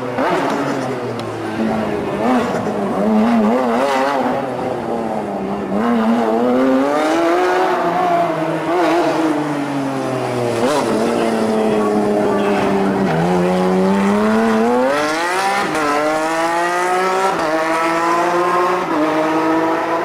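Porsche 997 GT3 RS race car's flat-six engine revving up and down through tight turns, with brief lifts off the throttle. After a dip in the middle it accelerates hard with a rising note, then makes several quick upshifts in the last few seconds.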